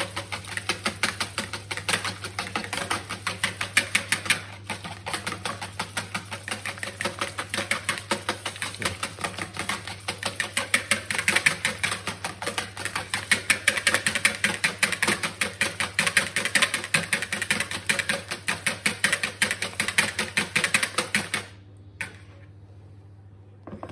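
Wet brownie batter being beaten by hand in a bowl, the utensil clicking rapidly and evenly against the bowl, stopping abruptly near the end.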